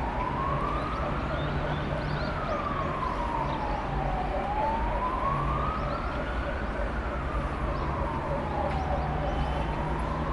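Siren wailing slowly up and down, each rise and fall taking about five seconds, two full cycles, over steady background noise.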